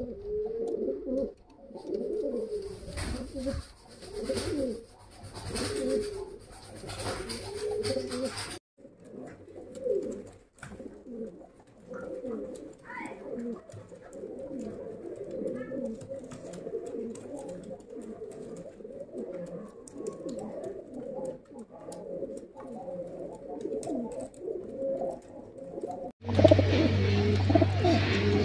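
Andhra high flyer pigeons cooing in a loft: low, repeated, overlapping coos that go on throughout and grow louder near the end.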